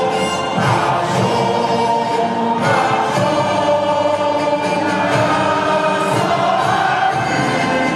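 Choral music: a choir singing slow, sustained chords.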